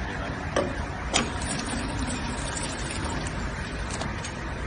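Conveyor-fed horizontal snack packing machine running with a steady mechanical hum, broken by sharp clacks about half a second in, just over a second in and again near the end.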